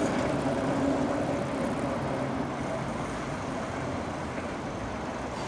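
Vintage electric tram moving away along its street track, its running noise dying away steadily to a low rumble.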